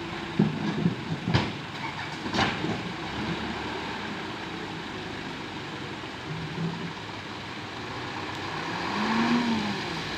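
Backhoe loader's diesel engine running steadily, with several sharp clanks in the first couple of seconds and a brief rise and fall in engine pitch near the end.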